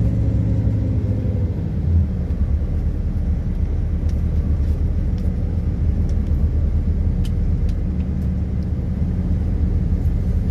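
Steady low rumble of a bus's engine and tyres, with a faint engine hum underneath.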